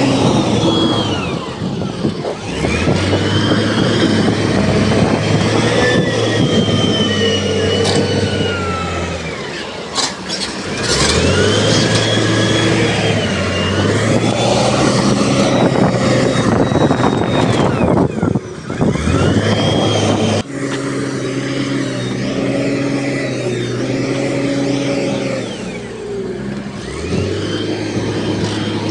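Heavy diesel earthmoving machinery working, its engine revving up and settling back in repeated cycles several seconds long, with a high whine that rises and falls with the revs.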